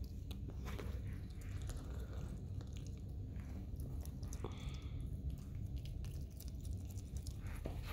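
Pet skunk chewing and biting a piece of chicken, a run of quick irregular wet clicks and smacks, over a steady low rumble.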